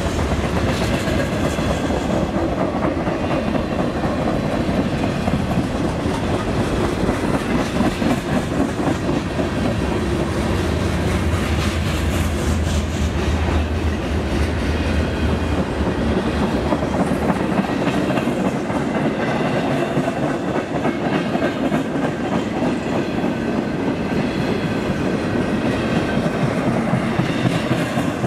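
Freight train cars, wallboard-loaded flatcars and then an intermodal well car, rolling past at trackside with a steady rumble and clatter of steel wheels on the rails.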